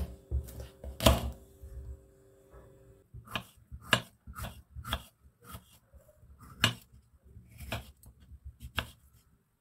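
Kitchen knife cutting a red bell pepper on a wooden cutting board. The blade knocks sharply on the board, once loudly about a second in, then about twice a second as the pepper is diced. A faint steady hum sounds during the first few seconds.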